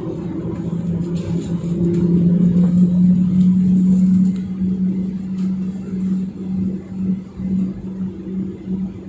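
Cabin noise of a Boeing 737-900ER taxiing: the CFM56-7B engines running at low power give a steady low drone that builds over the first few seconds and eases off about four seconds in.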